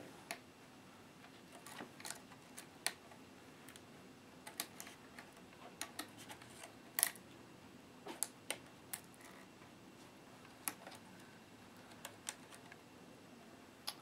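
Light, irregular clicks and taps of plastic parts being handled on a Dell D830 laptop, like keys and case pieces being pressed and pried, about twenty in all. The loudest is a double click about halfway through.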